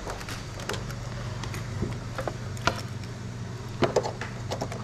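Irregular clicks and knocks of computer parts and cables being handled and fitted, over a steady low hum.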